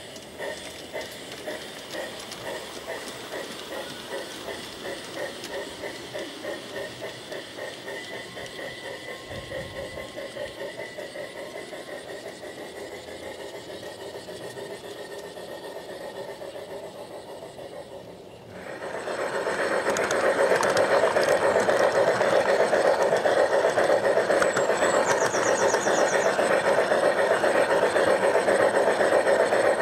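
G-scale model trains running on garden track. A small locomotive hauling wagons approaches with a rhythmic wheel-and-motor sound pulsing about twice a second. About 18 seconds in, this gives way to a much louder, steady rattle of wheels and gear motor, heard from a camera riding on the train.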